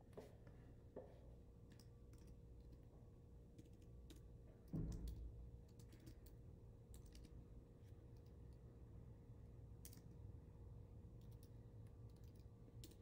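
Faint, sparse keystrokes on a computer keyboard over a steady low hum, with a dull thump about five seconds in.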